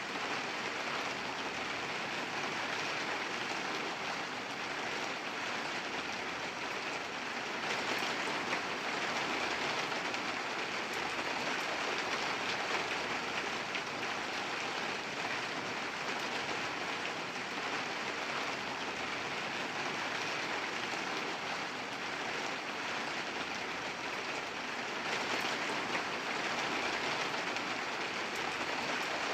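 Steady rainfall: a dense, even hiss of rain falling on surfaces, growing a little heavier twice.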